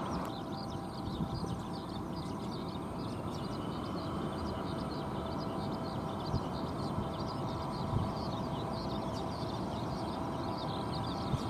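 Embraer E175 turbofan engines running at taxi power: a steady hum with a whine, and a higher whine that rises in pitch a couple of seconds in and then holds. Many faint, high chirps sound throughout.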